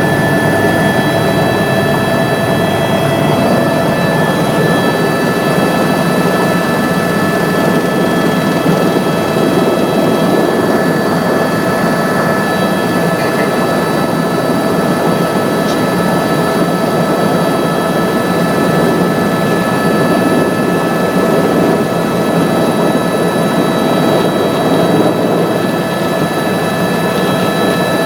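Tour helicopter in flight, heard on board: steady, loud rotor and engine noise with several high, steady whining tones running through it.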